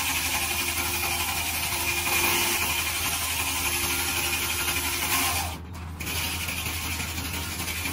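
Foley Belsaw M14 sawmill's 40-inch circular saw blade, driven off a farm tractor's PTO, spinning and ripping through a log, a steady whir and rasp over the drone of the tractor. The sound drops briefly about five and a half seconds in.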